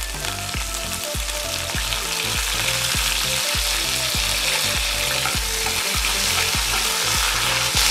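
Hot oil sizzling steadily as curry leaves and chopped green chillies fry with cumin and mustard seeds in a tempering, with a spatula stirring near the end. Background music with a steady beat plays underneath.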